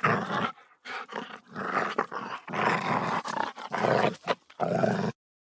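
An animal growling and roaring, about six rough calls in a row, cutting off suddenly about five seconds in.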